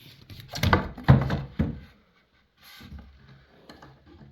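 A handful of knocks and thunks in the first two seconds as a mud kitchen panel is handled and set against the frame, then faint handling noise.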